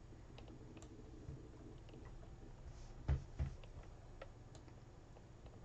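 Quiet room tone with a few faint ticks and two short knocks in quick succession about three seconds in.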